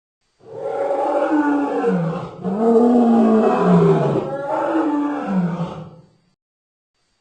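Dinosaur creature roar sound effect: a long, pitched roar in three connected phrases, rising and falling in pitch. It starts about half a second in and cuts off about a second before the end, with silence around it.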